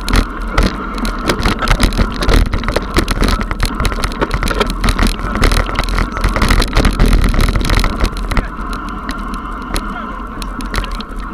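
Mountain bike rattling and clattering down a rocky trail: dense, irregular knocks and jolts from tyres, chain and frame hitting stones. The knocking eases after about eight seconds as the trail turns to smoother dirt.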